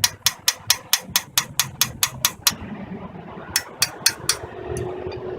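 Quick, light hammer taps on a seized exhaust-manifold bolt, about four a second, stopping briefly partway and then resuming with four more taps. The bolt head is being tapped back and forth to snap it off.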